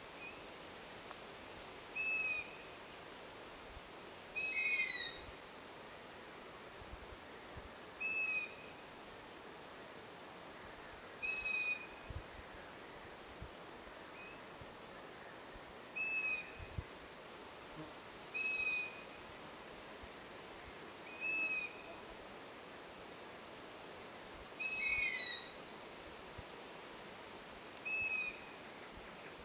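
Long-eared owl chicks giving their high-pitched begging calls for food, about nine calls in all at roughly three-second intervals. Some calls are loud and others fainter, from the chick's begging siblings.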